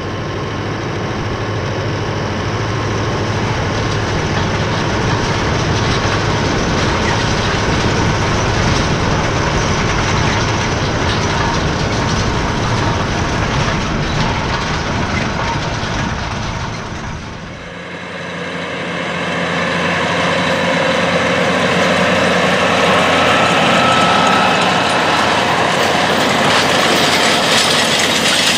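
John Deere 8850's 15.7-litre turbocharged V8 diesel running steadily under load while pulling a 50-foot McFarlane harrow. About two-thirds of the way through, the low engine note drops away and a noisier, higher rattle of the harrow's tines and chains dragging through the soil takes over.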